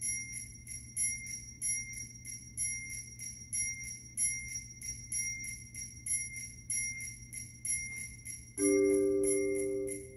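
Percussion ensemble: a high, bright metallic note struck over and over in a steady rhythm, about three strokes a second. Near the end a low mallet-keyboard chord comes in and is held.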